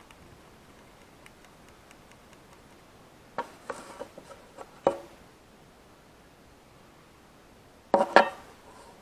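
Two short bursts of knocks and clatter from tools and hardware being handled, one about three and a half seconds in and a louder one about eight seconds in with a brief metallic ring.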